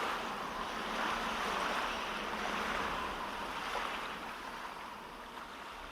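Ocean-surf sound effect closing a song: a steady rush of waves with no music over it, slowly fading out, heard through in-ear monitors.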